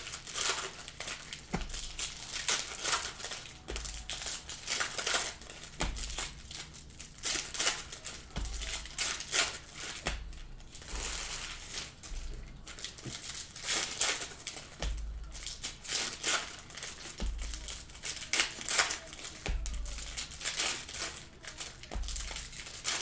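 Metallic foil trading-card pack wrappers crinkling and tearing as packs are ripped open by hand, in repeated bursts, with cards shuffled and laid on a table. Low dull thumps come every couple of seconds.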